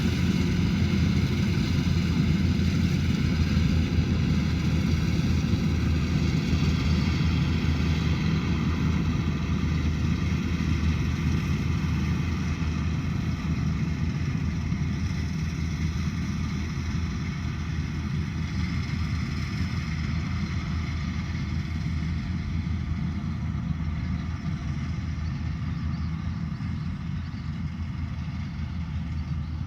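A combine harvester's engine running steadily at a constant speed, slowly getting a little quieter in the second half.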